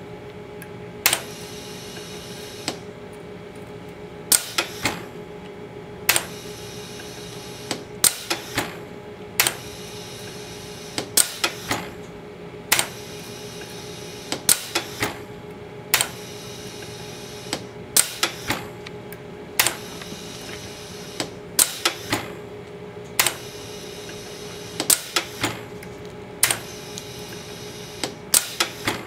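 Gorman Machine Hustler hook winder winding a toroid coil: small groups of two to four sharp mechanical clicks about every second and a half, over a steady machine hum.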